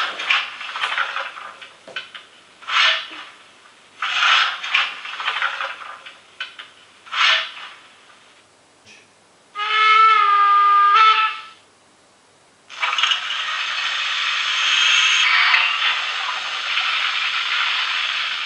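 Sound effects from the DCC sound decoder of an HO-scale DRG Class 44 model steam locomotive, played through its small speaker as function keys are triggered. There is a run of short hissing bursts, then a pitched whistle-like tone lasting about a second and a half around ten seconds in, then a long steady hiss.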